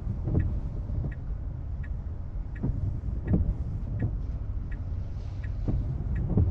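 Inside a Tesla Model 3's cabin: the turn-signal indicator ticking steadily, about one and a half ticks a second, over a low rumble of cars passing on the wet road.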